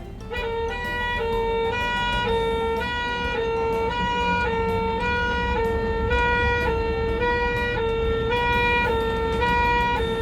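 Ambulance two-tone siren, switching back and forth between a higher and a lower pitch about twice a second, over a low rumble.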